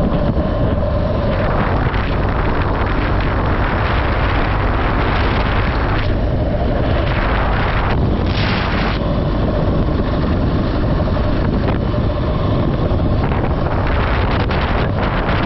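Steady wind rush buffeting the microphone over the hum of a moving vehicle, with a faint steady engine tone underneath.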